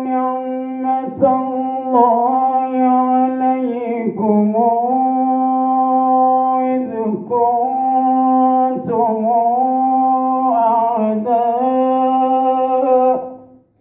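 A man reciting the Quran in the melodic tajweed style, holding long notes with ornamented turns and brief breaths between phrases. The recitation stops about thirteen seconds in.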